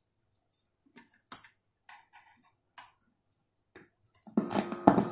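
A few light clicks and taps of hands working in the opened cassette stereo. About four seconds in, the stereo's amplifier comes on with loud pops through its speakers and a steady mains hum that keeps going: the set now has power.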